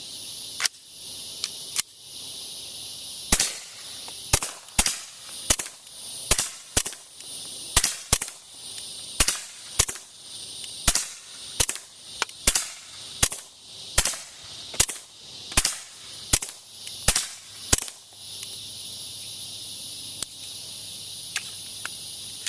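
Suppressed gunfire: more than twenty sharp shots in a quick string, about one to two a second, with a few scattered shots before and after. A steady high hiss runs underneath.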